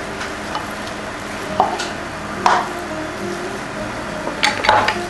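Kitchen utensils clinking and tapping against a bowl a few times, about a second and a half in, at two and a half seconds, and a cluster near the end, over a steady background hum, while seasonings are added to raw catfish.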